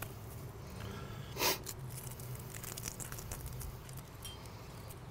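Light hand-handling sounds of smashed garlic cloves being peeled, the papery skins crackling, with one brief, louder crackle about a second and a half in, over a low steady hum.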